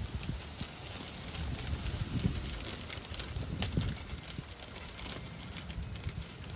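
Irregular clicks and knocks as a package of new brake pad hardware clips is broken open and handled.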